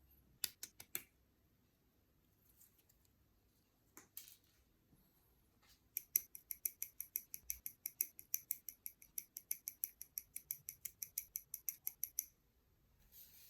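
Plastic model kit building sounds with no speech. About half a second in come a few sharp snips or clicks. From about six seconds in there is a rapid, even run of small clicks, about six a second, for six seconds.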